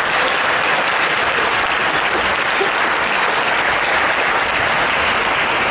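Spectators applauding steadily at the end of a badminton rally.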